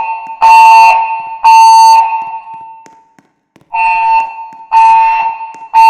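Fire alarm evacuation tone in the temporal-three pattern: steady half-second beeps in groups of three with a pause of about a second and a half between groups. This is the evacuation signal of a Pyrotronics MXL voice evacuation system, sounding between repeats of its recorded emergency message. One group ends about two seconds in, and the next group of three follows after the pause.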